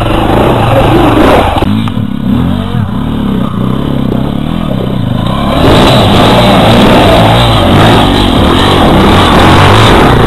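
Enduro motorcycle engines revving hard and unevenly under load as the bikes are worked up a steep rocky climb. About halfway through a different bike takes over, louder and more constant.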